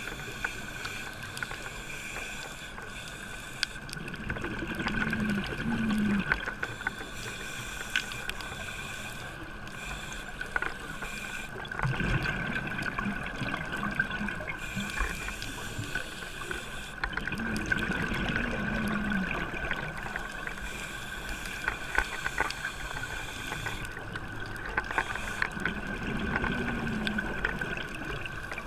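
A scuba diver breathing through a regulator underwater: four long exhalations of bubbles, about seven seconds apart, over a steady underwater hiss with scattered small clicks.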